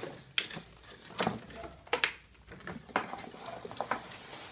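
Thin moulded plastic packaging tray crackling and clicking as it is handled and lifted out of a cardboard box, in a series of irregular sharp crackles over a light rustle.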